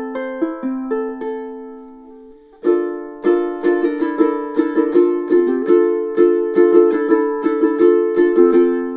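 DJ Morgan all-solid koa concert ukulele played with plucked single notes. One phrase rings out and fades about a second in, and after a short pause a new picked phrase begins about two and a half seconds in and carries on.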